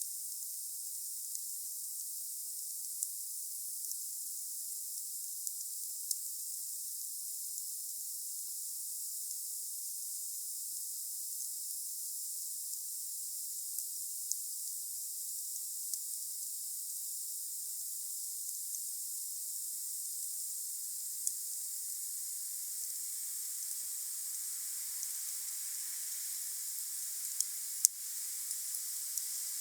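Wood fire burning with a steady hiss and scattered sharp crackles every second or few, the loudest pop near the end. The hiss grows fuller in the last third.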